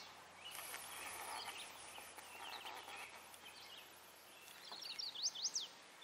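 Faint outdoor ambience with birds chirping now and then, and a quick run of high chirps about five seconds in.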